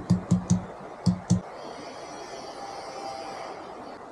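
A quick run of sharp knocks, about four a second, stopping about a second and a half in, followed by a steady rushing hiss like a river.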